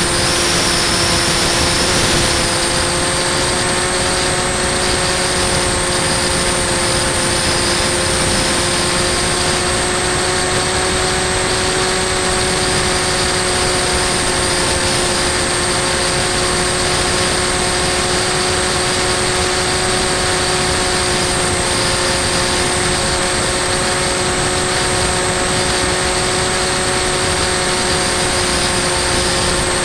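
Electric motor and propeller of a Bixler 2 RC plane running at a steady cruise, a constant whine of several tones, with air rushing past, as heard from a camera on board the plane.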